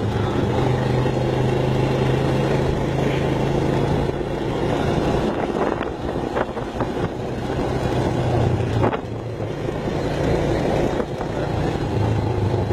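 ATV engine running under way, heard from the rider's seat. The engine note eases off about four seconds in and again about nine seconds in, then picks up near the end, with a few knocks and rattles from the machine in between.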